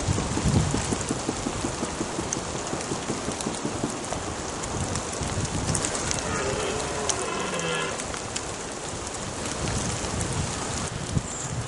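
Steady rain falling through woodland. About six seconds in, a red deer stag gives one rutting roar, lasting about two seconds.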